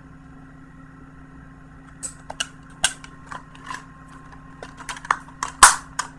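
Blu-ray cases and packaging being handled: a run of irregular plastic clicks and taps starting about two seconds in, the two loudest near the end, over a steady low electrical hum.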